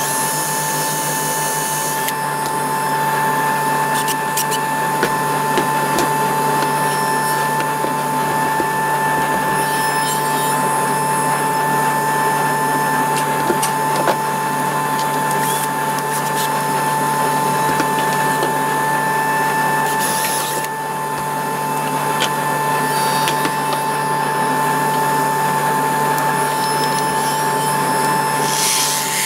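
A steady machine hum with a constant whine. In the first two seconds a Bosch cordless drill/driver drives a screw into plywood, and there are scattered small clicks and knocks of the work being handled.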